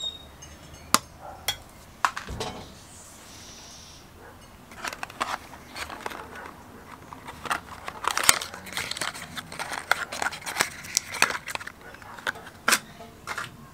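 A few sharp clicks from pliers crimping a spade terminal onto an ignition lead, then a long run of crinkling, rustling clicks as a small cardboard box is handled and its flap opened.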